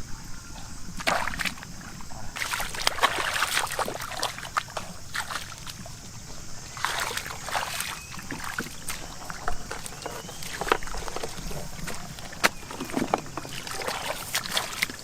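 Shallow water splashing and sloshing in irregular bursts, the sound of hands and fish moving through a flooded field.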